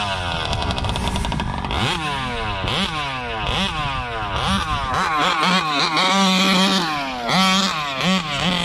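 Big-bore two-stroke gas engines of large-scale RC trucks revving up and down over and over, the pitch sweeping sharply up and falling back about once or twice a second. Toward the end a steadier engine note holds under the revs.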